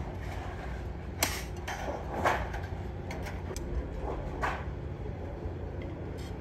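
Hand snips cutting stainless steel sheet: a few sharp metal snips and clinks, the loudest a little over two seconds in, over a steady low background hum.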